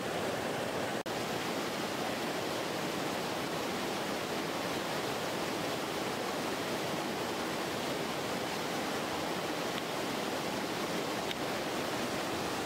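Shallow rocky river rushing steadily over stones, broken by a split-second gap about a second in.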